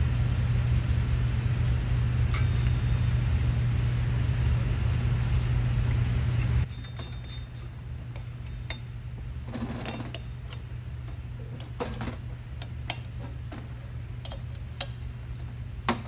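A steady low hum for about the first seven seconds, which cuts off abruptly. After that come scattered light metallic clinks and taps as metal hardware and tools are handled.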